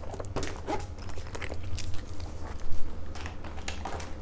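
Handling noise of a fabric dopp kit being picked up and moved away: a few scattered soft scuffs and knocks over a low steady hum.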